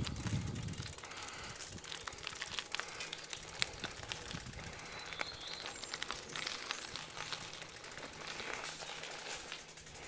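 Bicycle rolling over a rough, debris-strewn track, its tyres crackling over grit and litter with many small clicks and rattles; a low wind rumble on the microphone in the first second.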